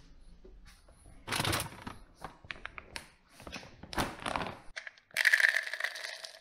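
A plastic bag of dry dog food rustling and crinkling as it is handled and opened, then dry kibble poured from a scoop rattling into a plastic measuring cup, the loudest part, starting about five seconds in.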